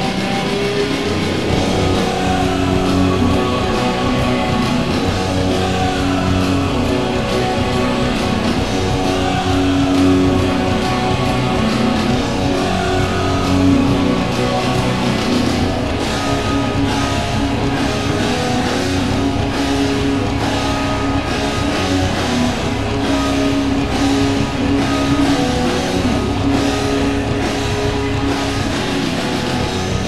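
Hockey goal song: rock music with electric guitar and drums playing steadily.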